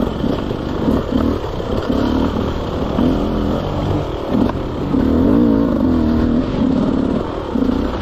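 Off-road dirt bike engine heard close up from on board, revving in repeated short throttle bursts that rise and fall in pitch, with a longer held rev about five seconds in.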